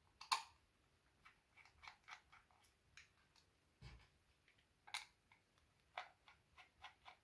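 Small screwdriver backing tiny screws out of the plastic case of a UNI-T UT658DUAL USB tester: a string of faint clicks and ticks, with a soft low knock about four seconds in.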